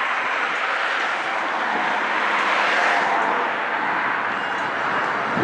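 Double-stack intermodal container train rolling past: a steady rush and rumble of steel wheels on the rails.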